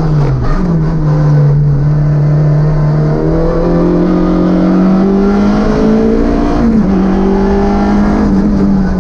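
Citroën Saxo VTS S1600 rally car's four-cylinder engine heard from inside the cabin, revving hard. Just after the start the pitch falls off under braking, then jumps up with a downshift. It climbs steadily as the car accelerates out of the bend, and dips sharply with an upshift about two-thirds through.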